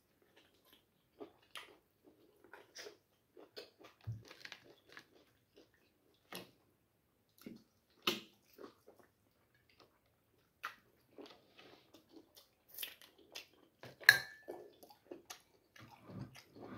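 A person chewing and biting into meat held in his hands: irregular wet chews and short clicks, the loudest two sharp clicks about 8 and 14 seconds in.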